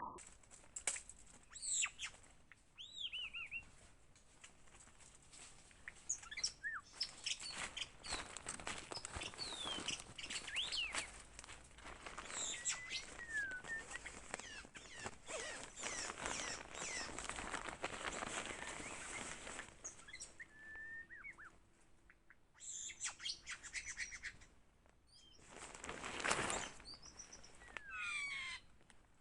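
White-rumped shama singing: varied, rapid whistled phrases of rising and falling notes, over stretches of rustling noise and a short loud burst of noise near the end.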